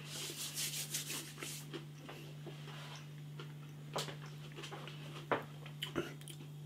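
Faint chewing and crunching of crispy breaded chicken nuggets, a run of small crackles in the first second or so and a few sharper clicks later, over a steady low hum.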